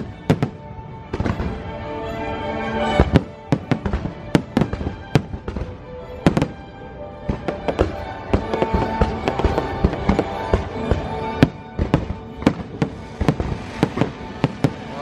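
Fireworks going off in rapid sharp bangs, dozens of them, over a loud musical soundtrack played for the show.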